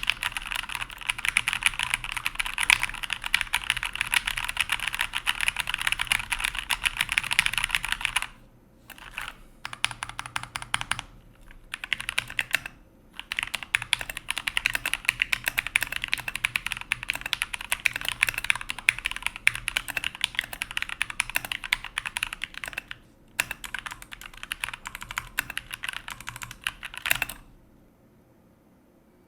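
Fast typing on a mechanical keyboard with Cherry MX Brown tactile switches: a dense, rapid patter of key clacks. The typing breaks off briefly a few times about a third of the way in and stops a couple of seconds before the end.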